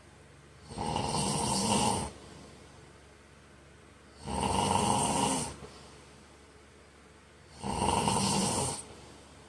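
A man snoring in his sleep: three loud snores, each a little over a second long, coming regularly about three and a half seconds apart.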